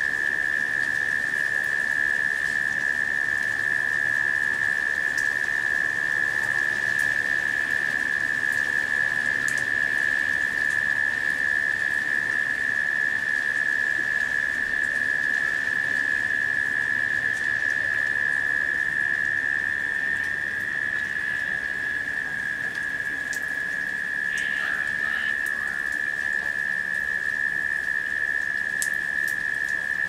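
A chorus of cicadas drones at one steady high pitch, over the hiss of rain falling on leaves and wet paving with scattered raindrop ticks. A short burst of bird chirps comes about three-quarters of the way through.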